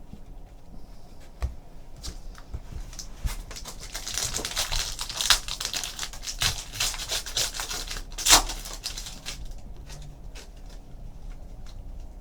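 A trading card pack being torn open and the cards handled and slid against one another: scattered light clicks, then a few seconds of dense crinkling and rustling starting about four seconds in, with one sharp snap near the end of it.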